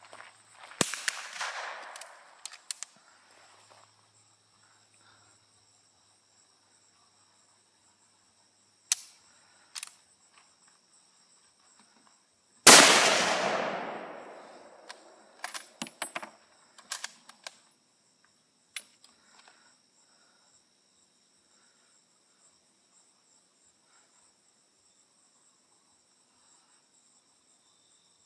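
Remington 770 bolt-action rifle in .30-06 firing: one very loud shot about halfway through, its report rolling away for about two seconds, and a fainter shot about a second in. Sharp clicks and knocks come before and after the loud shot, and insects chirp steadily behind in high, even tones.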